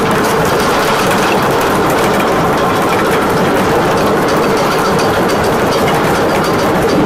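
Ship's anchor chain paying out freely after the anchor is let go, its heavy steel links running across the deck and down the hawsepipe in a continuous loud clatter.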